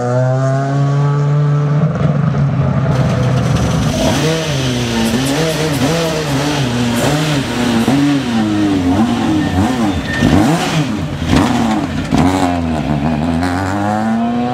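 S2000 rally car engine revving hard, its pitch rising and falling over and over as it shifts and lifts through the stage, with a few sharp cracks in between.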